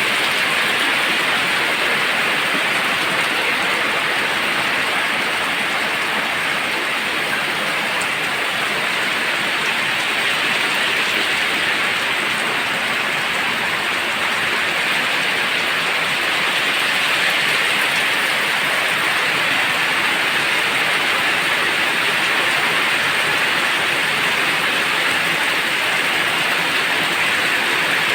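Heavy downpour, rain pouring steadily and loudly onto surfaces.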